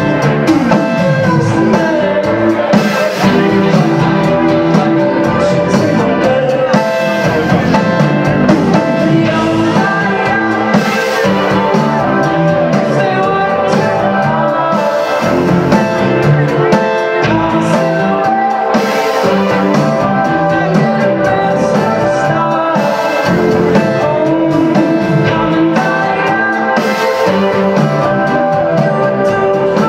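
Indie rock band playing live: electric guitar and drum kit with a singer, one continuous full-band passage of a song.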